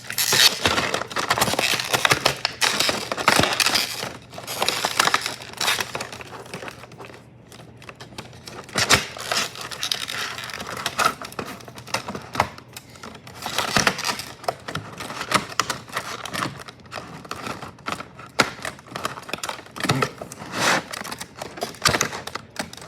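Stiff plastic packaging crinkling and clicking in irregular spells as a model locomotive is worked out of it, with a quieter stretch about a third of the way in.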